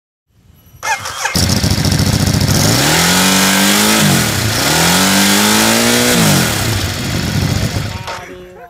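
Ducati Hypermotard 821 SP's 821 cc L-twin, breathing through an aftermarket SC Project CRT exhaust, fires up about a second in. It is revved twice, each rev climbing for about a second and a half before dropping back, then it settles toward idle.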